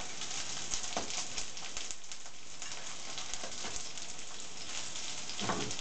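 Potato-and-chicken fritters (draniki) frying in oil in a pan: a steady crackling sizzle, with a few sharper clicks of the fork and spoon against the pan as they are turned.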